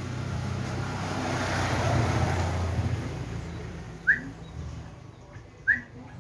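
A motor vehicle passes by, its engine and road noise swelling and then fading. Then a yellow-vented bulbul gives two short, sharp rising chirps a second and a half apart.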